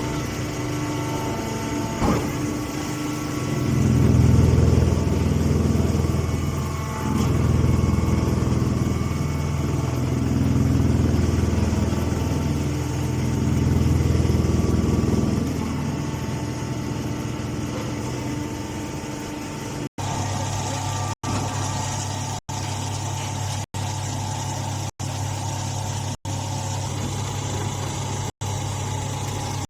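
Mini leaf baler's motor running steadily, swelling louder four times for a couple of seconds each, as under load while pressing. In the second half the sound cuts out for an instant about every second.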